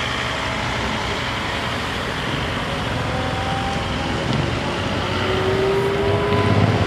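Cars driving over the level crossing: engines and tyre noise from passing road traffic, growing louder near the end as cars pass close by.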